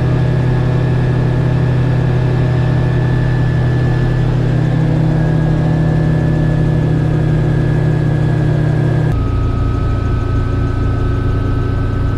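Rotax 915 iS turbocharged four-cylinder engine of a Niki Kallithea gyrocopter running steadily at cruise power, heard from inside the open cockpit. About three-quarters of the way through, the engine note drops abruptly to a lower pitch and runs on steadily.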